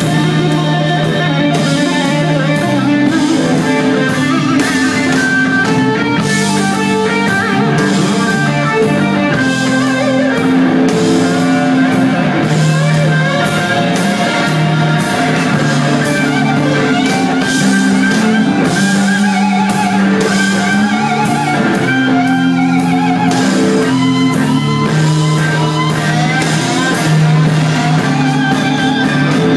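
Live blues-rock band: a 1959 Gibson Les Paul Standard through a Bogner Ecstasy amplifier plays quickly changing lead lines over bass notes, drums and keyboards.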